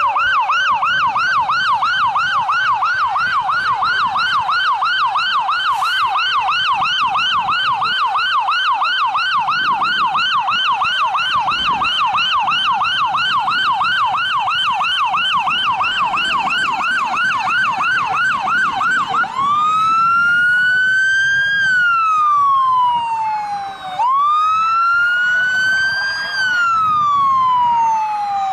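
Electronic emergency-vehicle siren sounding a fast yelp, its pitch sweeping up and down a few times a second. About two-thirds of the way through it switches to a slow wail that rises and falls over several seconds, twice.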